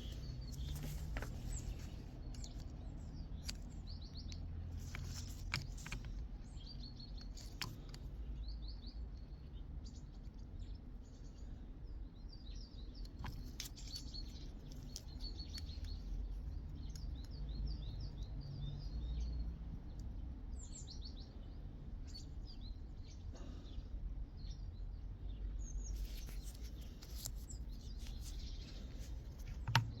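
Small birds chirping repeatedly in short bursts over a steady low hum, with scattered sharp clicks.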